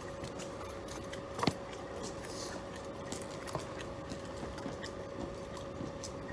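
A steady mechanical hum with scattered light clicks and taps, one sharper click about a second and a half in.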